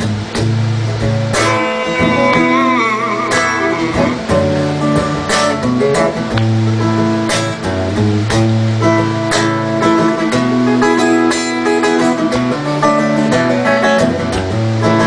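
Guitar playing an instrumental passage of a soul song between sung verses, picked notes and strummed chords ringing out.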